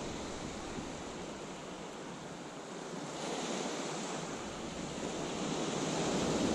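Small waves breaking and washing onto the shore, growing louder from about halfway through.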